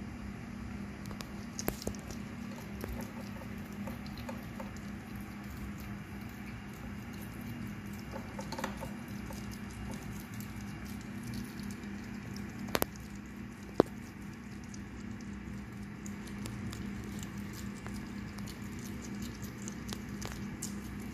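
Hedgehogs chewing mealworms and moving about on a plastic floor: a continuous scatter of small crunching clicks, with a few sharper clicks around the middle, over a steady low hum.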